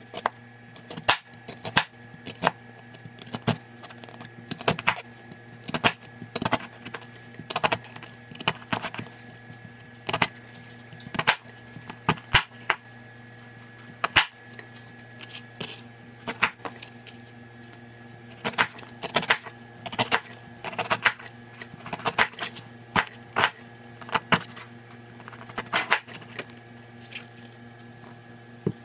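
Knife chopping vegetables on a cutting board: sharp, irregular knocks in short runs with brief pauses, over a faint steady hum.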